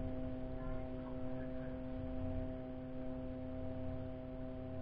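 A steady hum made of several fixed tones, over a low rumble.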